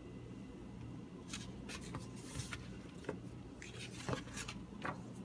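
Paper rustling and a few soft clicks as a thin paperback picture book is opened and its pages are turned. The rustles come in a string of short bursts starting about a second in.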